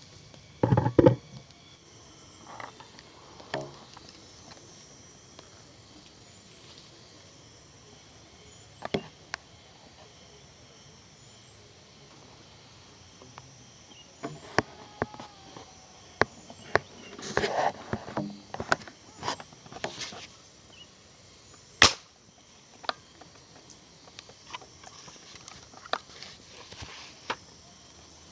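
Scattered clicks, knocks and rattles from a hand-made fish-shooting gun being handled and aimed, with a loud knock about a second in, a busy patch of clatter around the middle, and a single sharp snap near 22 seconds.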